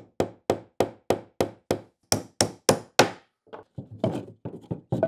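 A resin 3D-printed hammer (Formlabs Tough 2000) tapping a metal nail into wood in quick strokes, about four a second. A few harder blows fall a little past the middle, and lighter taps follow as the nail goes in.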